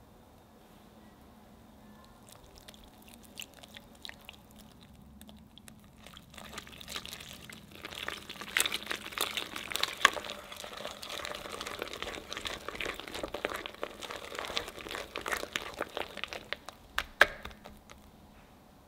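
Wire whisk mixing a soft butter batter in a glass bowl: wet squishing with irregular clicks of the wires against the bowl. It starts about six seconds in and stops shortly before the end, with a few sharper knocks along the way.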